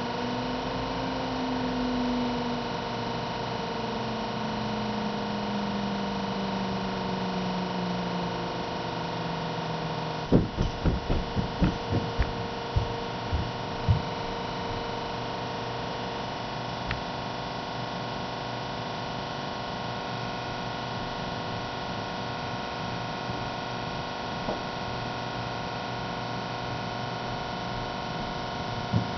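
Outdoor tornado warning sirens, a Sentry 7V8-B, a WS2000 and a Thunderbolt, sounding together as several steady tones, with one slowly falling in pitch over the first ten seconds. About ten seconds in comes a quick run of about ten knocks.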